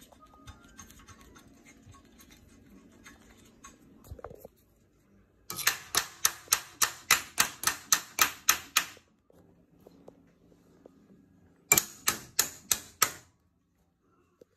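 Socket ratchet wrench clicking as it turns a bolt on a pit bike's fork triple clamp: a run of sharp, even clicks, about four a second, for some three seconds, then a shorter run of the same clicks near the end.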